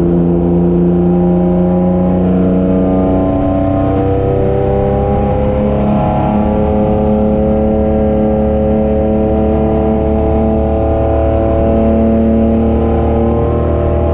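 Holden HQ race car's engine, heard from inside the car, running hard under load with the revs climbing slowly and steadily through a long pull in one gear.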